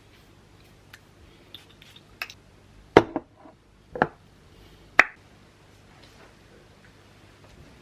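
A series of sharp knocks or taps: a few light clicks, then three louder knocks about a second apart near the middle, the first the loudest, over a faint steady hum.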